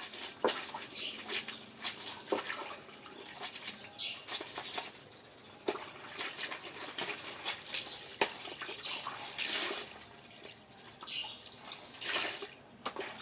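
Clothes being washed by hand: wet fabric rubbed, squeezed and splashed in water, in irregular bursts.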